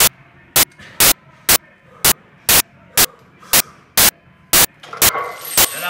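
Loud, sharp clicks at an even pace of about two a second; near the end, music with a singing voice comes in underneath.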